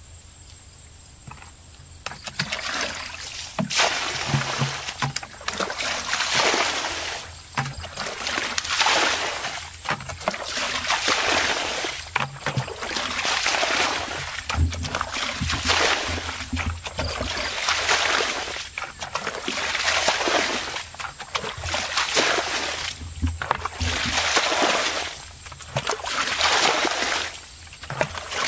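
A plastic bucket scooping water from a shallow pond and tipping it out, giving a splash about every two seconds after a quiet start: water being bailed out by hand.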